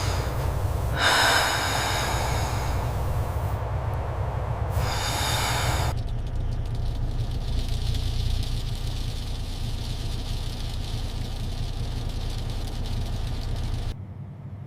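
Semi truck engine running with a steady low rumble, broken twice by loud bursts of hissing about a second or two long, near the start and about five seconds in. The rumble drops away shortly before the end.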